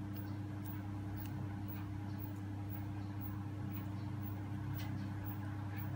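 Steady low hum, with faint, irregular small ticks from a metal crochet hook working yarn through stitches.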